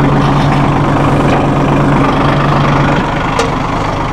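Massey Ferguson 1740E compact tractor's 1.5 L Shibaura diesel engine running steadily as the tractor drives. The engine note drops slightly about three seconds in, and a single sharp click follows.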